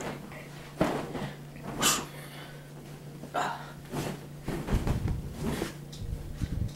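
Fabric rustling and soft bumps as a blanket and cushions are handled close to the microphone, coming in irregular bursts over a steady low hum.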